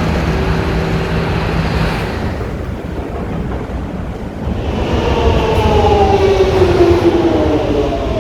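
London Underground train running with a steady rumble, then a falling whine from about five seconds in as it slows.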